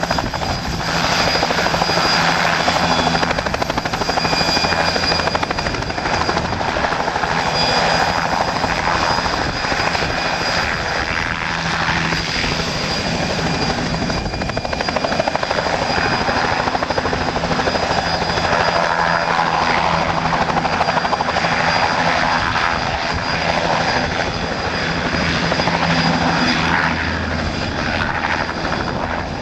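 Helicopter in flight, heard from inside its cabin: steady rotor and engine noise with a faint high whine running through it.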